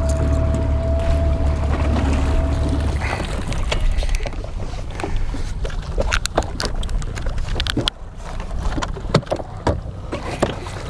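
A boat motor runs with a steady hum and a thin whine, then stops about three seconds in. After that come scattered knocks and clunks on the fishing boat over rough water and wind noise.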